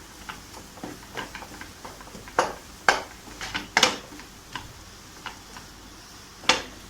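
A spoon knocking and scraping against a pan while mixing mashed-potato stuffing, a string of light clicks with a few sharper clinks, the loudest near the end.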